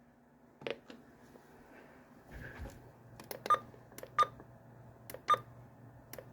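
Buttons pressed on an electronic weather alert radio receiver: a run of sharp clicks, four of them answered by a short single-pitched beep, spaced about a second apart in the second half.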